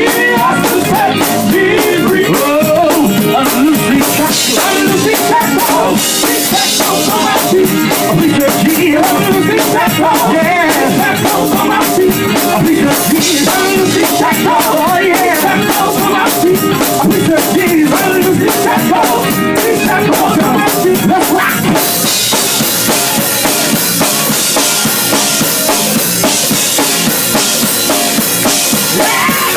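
Live gospel music: a male vocal group sings over a band with a busy drum kit, loud and steady. About two-thirds of the way in, the sound turns brighter and hissier.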